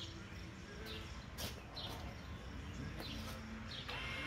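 Birds chirping in short, repeated falling calls. Near the end a steady electric whine starts: the powerlift step's 12V electric linear actuator motor switching on to raise the platform.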